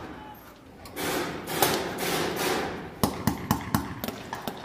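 Troops' boots and gear on the move through a doorway during a room-clearing entry: a stretch of scuffling and rustling, then about six sharp knocks in quick succession, like boots on a hard floor.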